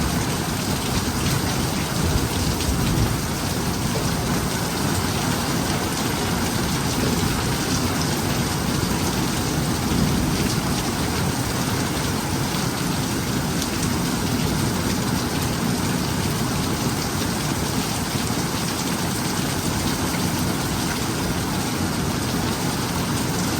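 Steady thunderstorm rain falling, an even hiss of rain pattering on surfaces.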